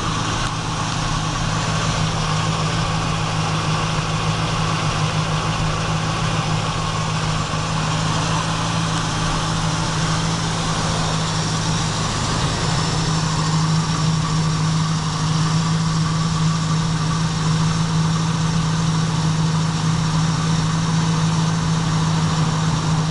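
2002 Chevrolet Camaro SS's 5.7-litre LS1 V8 idling steadily.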